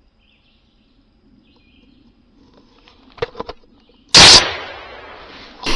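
A single shotgun shot about four seconds in: sudden and very loud, its report dying away over a second or more. A few faint clicks come just before it.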